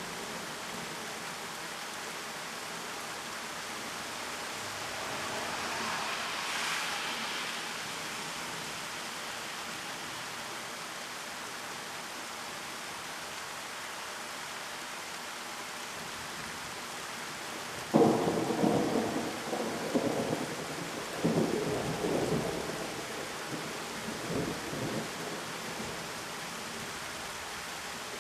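Heavy rain pouring steadily. About two thirds of the way through, a sudden crack of thunder breaks out and rolls on in several loud peaks for about seven seconds before fading back under the rain.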